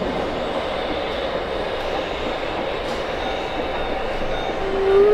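LGB garden-scale model trains running on the layout, with a steady rolling rattle of wheels on track. Near the end a loud steady held tone starts.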